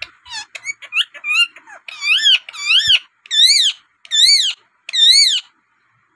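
Rose-ringed parakeet calling: a quick string of short chirps, then, from about two seconds in, five long screeches about one every 0.8 seconds, each rising and then falling in pitch.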